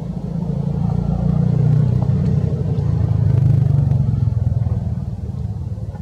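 Low engine hum of a passing motor vehicle, growing louder about a second in and fading again near the end.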